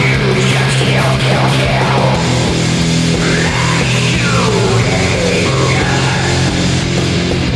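Loud heavy rock music with electric guitar over a bass line holding low notes.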